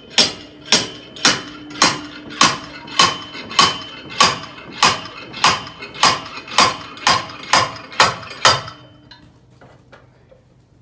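Slide hammer mounted on a Rotax 912 ULS propeller gearbox, its weight slammed against the stop in a steady run of about sixteen ringing metal-on-metal blows, a little under two a second, to pull the gearbox off the engine. The blows stop near the end.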